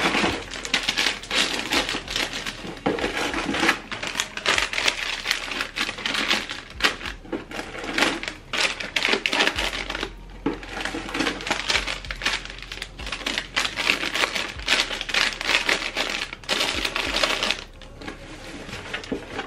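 Plastic snack packets crinkling and rustling as they are stuffed by hand into a crowded bag: a dense run of crackles and small knocks, easing off briefly twice.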